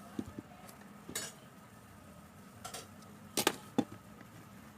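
Scattered small metal clicks and taps of repair tools against a phone's circuit board while a charging port is soldered in, with the loudest pair of clicks about three and a half seconds in.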